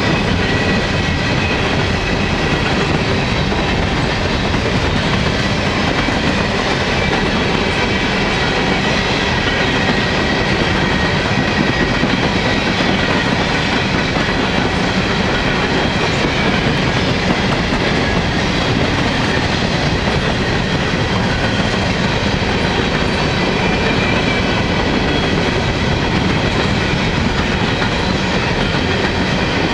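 Coal hopper cars of a long freight train rolling past: a steady rumble and clatter of steel wheels on the rails, with thin high ringing tones over it.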